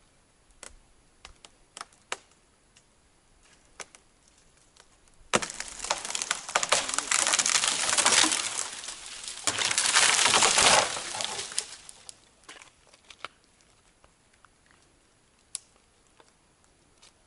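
Dry tree branches and twigs snapping and crackling: scattered sharp snaps, then from about five seconds in some six seconds of loud, dense crackling and rustling, dying back to a few snaps.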